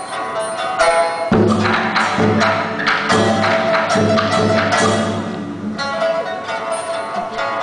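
Chinese ensemble music led by plucked strings (pipa and yangqin). About a second in, a stretch of percussion strikes, drum and wood-block-like, joins for several seconds and then drops out, leaving the plucked strings.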